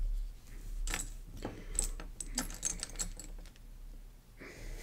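Small plastic Lego pieces clicking and rattling as they are handled and sorted through by hand: a run of quick, sharp clicks and light clatter in the middle, trailing off near the end.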